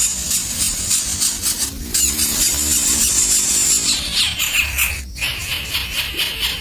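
Nestling birds' shrill, rapid begging calls, a dense high-pitched chatter with brief breaks about two and five seconds in.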